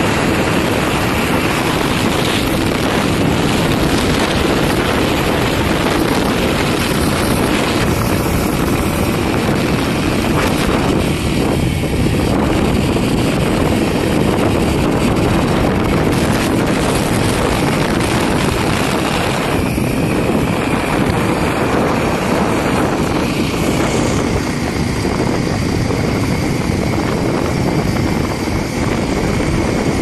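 Wind rushing over the microphone of a moving motorbike, with the bike's engine running steadily beneath it.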